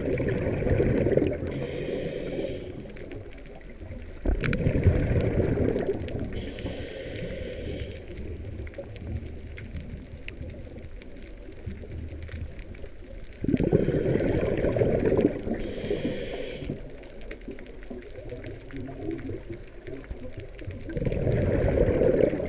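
Scuba diver breathing through a regulator underwater: bubbling exhalations, each followed by a hissing inhalation, about four breaths in all.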